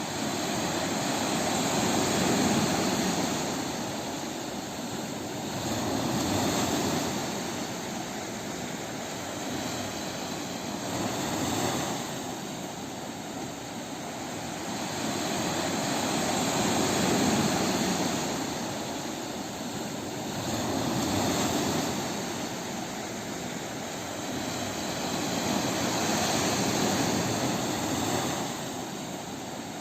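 Sea waves breaking on a beach, a continuous rush of surf that swells and falls back about every four to five seconds.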